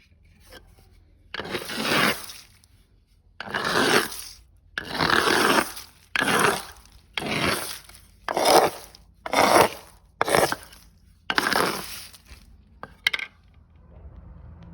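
A series of about nine rasping scraping strokes, each lasting up to a second, at uneven intervals of roughly a second, made by hand work during pepper preparation.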